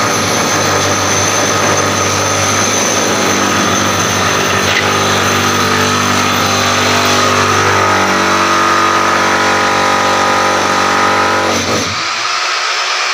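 A motor running steadily, then stopping about twelve seconds in.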